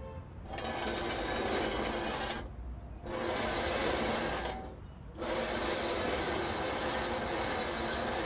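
Cartoon sound effect of a heavy metal flower tub being scraped along pavement. It comes in three pushes with short breaks between them, and the last push is the longest.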